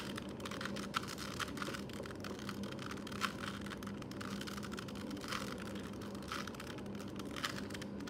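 Quick, irregular plastic clicks of a brand-new Rubik's Cube's layers being turned rapidly by hand to scramble it.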